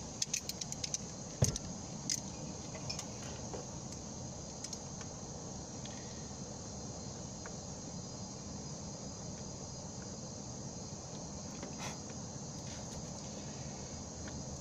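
Steady insect chirping, with a few sharp clicks and a knock in the first two seconds from locking pliers being clamped down to crimp butt connectors on wires.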